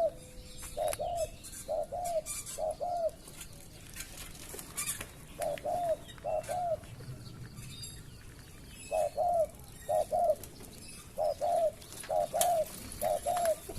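Spotted dove cooing: short two-part coos at a middle pitch, each falling slightly, repeated in runs of two or three with pauses between the runs.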